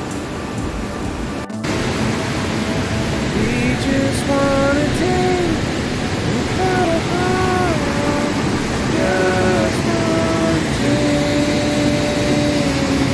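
River water rushing through rocky rapids as a steady roar after an abrupt cut about a second and a half in. A melody of held, gliding notes plays over it from a few seconds in.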